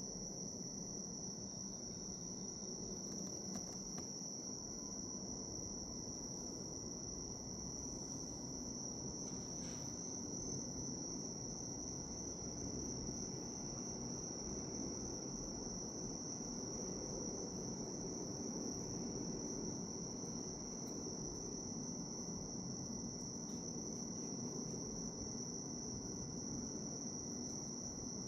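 Japanese bell crickets (suzumushi) singing: one continuous, steady high-pitched ringing trill, over a low, even background rumble.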